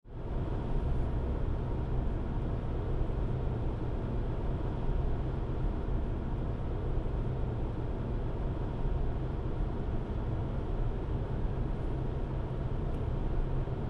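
Steady low road rumble of a vehicle driving along an expressway, heard from aboard a moving vehicle.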